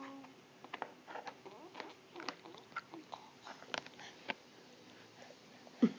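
A baby gumming and sucking on a plastic-handled spoon while feeding himself mashed prunes: quiet, irregular wet mouth smacks and small clicks.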